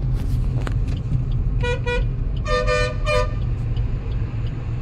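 Car horn honking in traffic, heard from inside a moving car: two short toots about a second and a half in, then a longer honk and one more short toot. A steady low rumble of engine and road noise in the cabin runs underneath.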